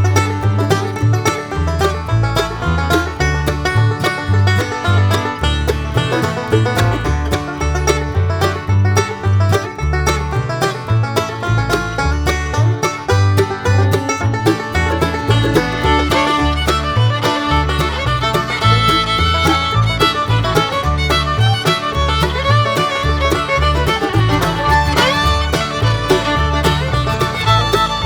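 Background music: an upbeat bluegrass tune with fast banjo picking and fiddle over a steady bass beat.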